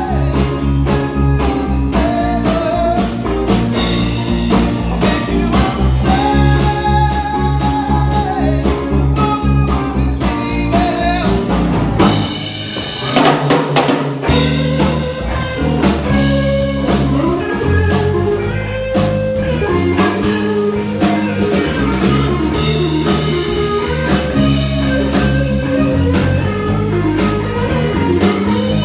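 Live blues trio of electric lead guitar, bass guitar and drums playing an instrumental passage, the guitar carrying held, bending lead notes. About twelve seconds in, the low end drops out for a couple of seconds before the full band comes back in.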